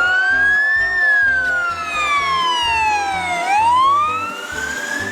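Wailing fire-engine siren that rises slowly, falls over about two and a half seconds, then rises again. Background music with a steady low beat plays underneath.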